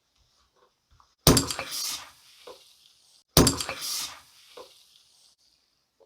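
Ramune soda bottle being opened: the marble seal is pushed down into the neck twice, each time a sharp pop followed by about a second of fizzing hiss.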